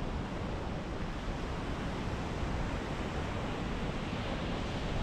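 Ocean surf washing on a beach, with wind buffeting the microphone: a steady rush of noise with a heavy low rumble.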